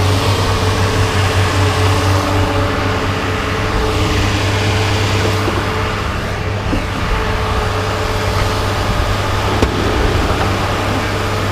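Motor vehicle engine running with a steady low hum.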